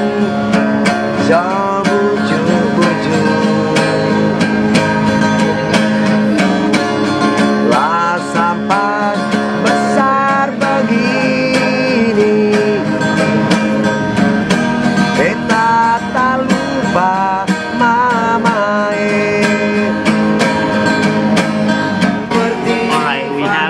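Background music: a song with acoustic guitar and a voice singing a melody in Indonesian.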